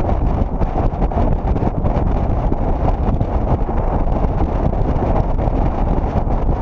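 Wind rushing and buffeting on the microphone of a camera mounted on the outside of a moving car, a steady low fluttering rush with the car's road noise underneath.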